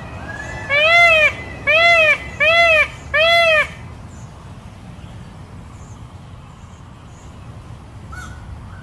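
Indian peafowl (peacock) giving four loud calls in quick succession, each rising then falling in pitch. Faint chirps of small birds sound behind and after them.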